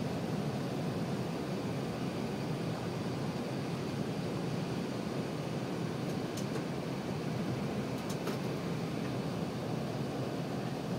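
Steady cabin noise of an Airbus A380-861 on approach, heard inside the cabin at a window seat over the wing: the drone of its Engine Alliance GP7200 engines and the rush of air over the airframe, with flaps extended for landing. A couple of faint clicks come about six and eight seconds in.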